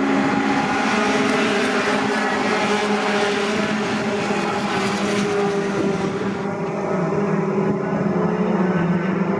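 Racing pickup trucks' engines running loud and steady on the circuit, several engine notes overlapping; the main note settles lower from about six seconds in.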